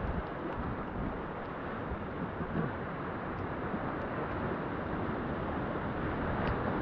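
Steady rush of whitewater rapids around a kayak as it runs down the river, with rough low rumbles of wind on the microphone.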